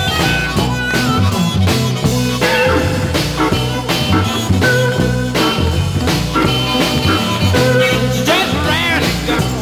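A 1966 blues/R&B 45 rpm single playing: the full band keeps a steady beat.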